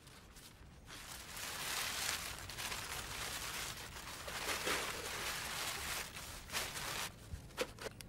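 Sheet of wrapping paper rustling and crinkling as it is folded by hand around a hat, swelling and fading over several seconds, followed by a few light clicks near the end.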